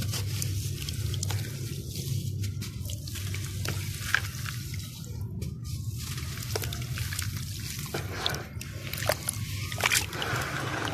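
Hands squeezing and crumbling dry dirt-and-sand balls over a tub of water: gritty crackles, with crumbs trickling and dripping into the water. The crackling grows busier near the end, over a steady low hum.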